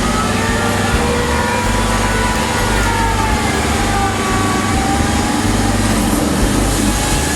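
Engine-driven sawmill running steadily, its engine note slowly wavering up and down in pitch.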